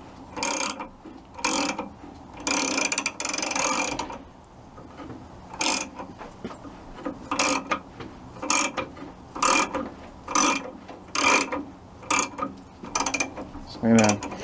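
Ratcheting wrench clicking in short strokes on the alternator pulley nut of a VW Type 1 engine: a longer run of clicks a few seconds in, then about one stroke a second.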